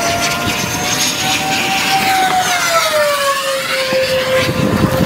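An aircraft passing overhead, its steady engine note sliding lower in pitch as it goes by, about halfway through.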